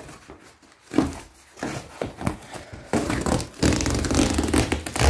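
Cardboard box being opened by hand: a sharp knock about a second in, scattered handling noises, then from about three seconds in a loud stretch of cardboard flaps and honeycomb paper wrapping rustling and scraping.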